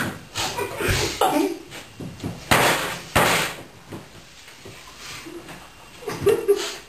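Short breathy puffs and splutters of air blown through mouths full of dry breadcrumbs, failed attempts to whistle. The two loudest puffs come about two and a half seconds in, less than a second apart.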